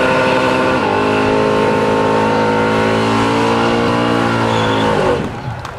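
Drag car's engine held at high revs during a burnout, tyres spinning and smoking, with a slight dip near one second in; the revs fall away about five seconds in as the driver lets off.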